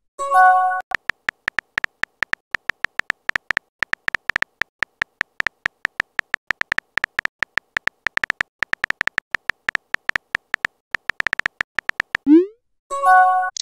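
Texting-app typing sound effect: quick short clicks with a light tone, several a second, as a message is typed letter by letter. About twelve seconds in, a rising swoop and then a short chime mark the message being sent, and a similar chime sounds right at the start.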